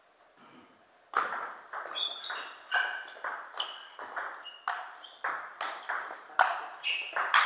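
Table tennis rally: the ball clicking sharply off the bats and the table, about three hits a second, starting about a second in, with a few short high squeaks among the hits.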